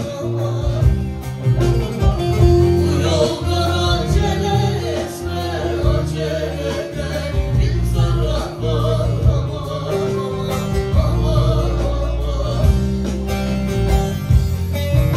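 Live Turkish folk music led by a strummed bağlama (long-necked saz), with keyboard accompaniment and a singing voice.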